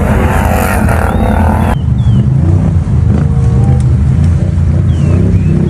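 An ATV engine running steadily at a constant pitch, starting and cutting off abruptly like a recording laid over the scene. A few faint high chirps sound above it.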